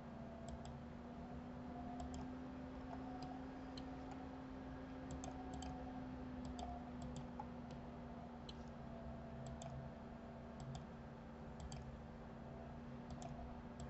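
Computer mouse buttons clicking, a string of faint clicks, many in quick pairs, over a steady low hum.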